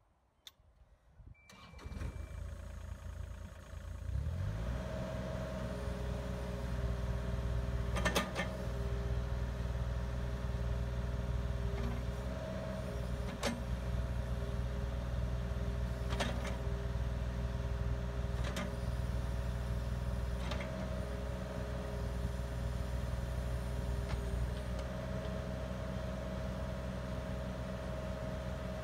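Cat 303.5E mini excavator's diesel engine starting about two seconds in and then running steadily. A hydraulic whine comes and goes as the boom and arm are worked, with several sharp clunks along the way.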